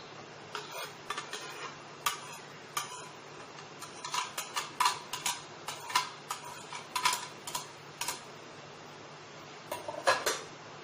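Metal spoon clinking and scraping against a serving plate and glass bowls as jelly pieces are spooned out: many irregular, sharp clinks with a short ring, bunched in the middle and again near the end.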